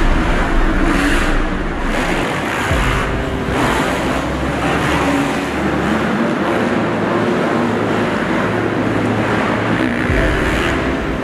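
Dirt bikes running on a supercross track, the engine noise surging and easing as riders open and close the throttle.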